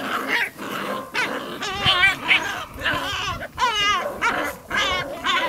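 A litter of six-week-old puppies whining and yipping while they play-bite at trouser legs and boots: a string of short, high, wavering squeals, with a longer one about halfway through.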